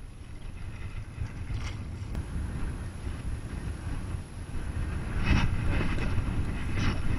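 Wind buffeting an action camera's microphone, a low rumbling that grows stronger in the second half. There are two brief noises about five and seven seconds in.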